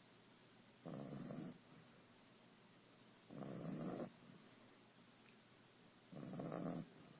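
A sleeping pet snoring: three loud snores at an even pace, about two and a half seconds apart, each followed by a quieter breath.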